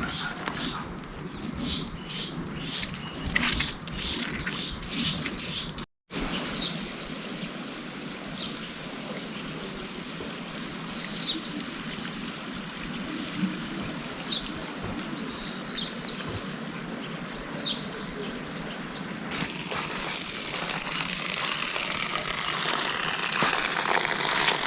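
Small birds chirping in short, high, scattered calls over a steady outdoor hiss; the audio cuts briefly about six seconds in.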